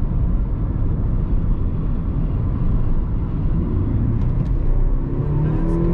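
Car driving on the road: a steady low rumble of engine and tyre noise. About five seconds in, an engine note comes up and rises in pitch as the vehicle speeds up.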